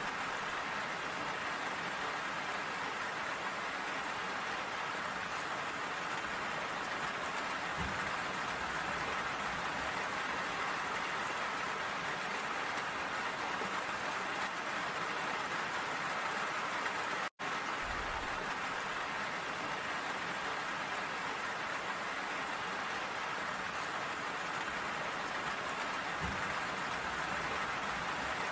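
Steady rain falling, an even hiss of many drops. The sound cuts out for an instant about two-thirds of the way through.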